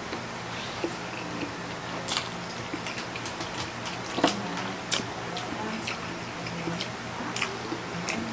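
Close-up eating sounds of two people on instant noodles and sausages: wet chewing and slurping with many small, irregular mouth and fork clicks, the sharpest about four seconds in, over a faint steady low hum.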